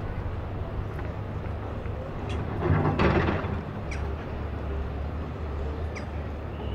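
River tour boat's engine running with a steady low hum, with a brief louder burst of noise about three seconds in and a few faint sharp ticks.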